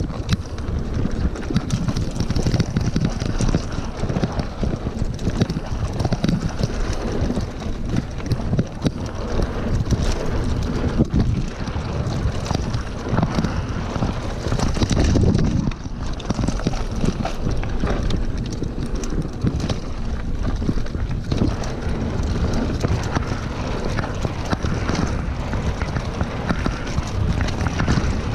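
Wind buffeting the action camera's microphone during a fast mountain-bike descent on a dirt trail, over the steady rush of tyres on dirt and frequent rattles and knocks from the bike over bumps.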